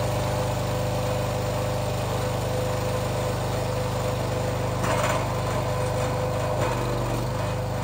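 Small gasoline engine of a Wolfe Ridge log splitter running steadily at speed, driving the hydraulic pump, with a brief noise of wood being handled on the beam about five seconds in.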